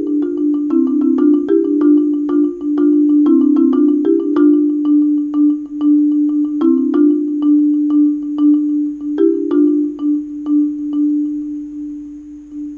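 Marimba played with four yarn mallets: a low note repeats steadily about twice a second under sparser higher notes, the texture thinning and getting quieter toward the end.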